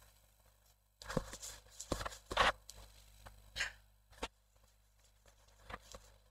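Faint scattered rustles and soft clicks, with a sharper click about four seconds in.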